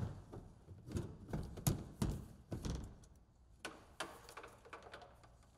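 Irregular light clicks and knocks of hand tools and fasteners being worked: a 6 mm Allen socket turning the skid-plate bolts under the vehicle. The strikes come thickest in the first three seconds and grow fainter after.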